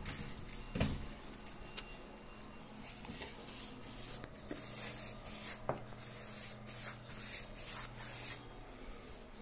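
Household-soap solution being wiped over a painted wall in quick repeated strokes: a run of soft swishing rubs, about two a second, from about three seconds in. The wall is being soaped before fallen wallpaper is re-glued.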